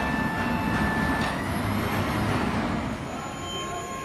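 Motor and hydraulic pump of a wall-panel installation machine running with a steady mechanical drone and a whine. The whine's pitch shifts about a second in, and the sound drops a little and changes about three seconds in.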